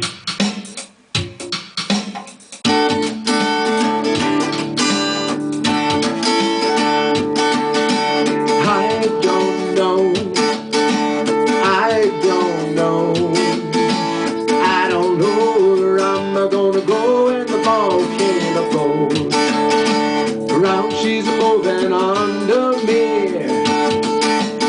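Instrumental song intro on acoustic guitar: a few loose strums at first, then a steady strummed chord pattern from about two and a half seconds in, with a lead melody line bending in pitch over it from about eight seconds in.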